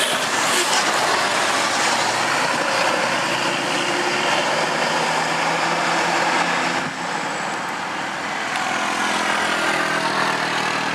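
A heavy road vehicle's engine running, with a steady loud rush of engine and road noise and a short dip about seven seconds in; no horn melody is heard.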